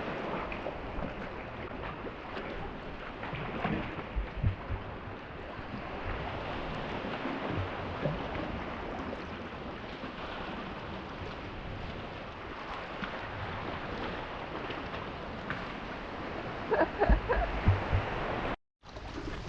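Sea water sloshing and gurgling around a kayak as it is paddled, with a few louder splashes or knocks about four seconds in and again near the end.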